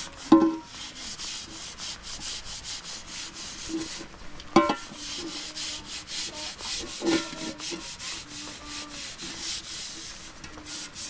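Rhythmic scraping, about three strokes a second, broken by three sharp knocks with a brief ring: about a second in, near the middle, and about seven seconds in.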